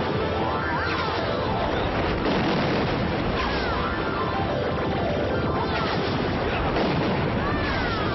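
Dramatic film score under crashing, booming sound effects, with whistling glides that rise and fall a few times.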